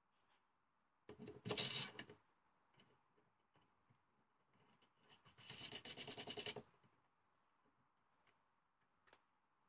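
Steel parts of a quick-change lathe tool post being fitted onto its stud: a short metallic scrape and clunk about a second in, then a quick run of clicks around five to six seconds in as the nut is spun down the threaded stud.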